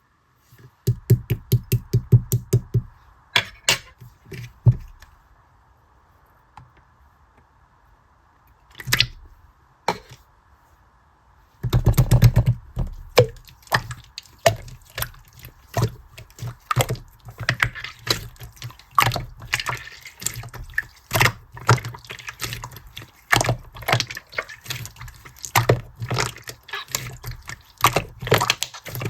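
Slime being squeezed and poked by hand, giving wet popping and crackling clicks in quick runs. A short burst of pops at the start, a quiet stretch of a few seconds broken by two or three single pops, then dense, continuous squishing and crackling for the rest.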